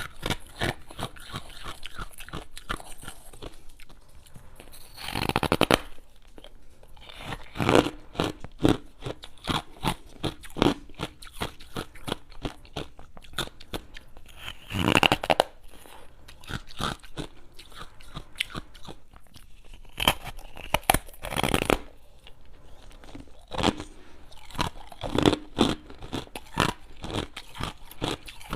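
Close-miked crunching and chewing of ice, probably freezer frost, with a steady run of crisp crunches and several longer, louder bites.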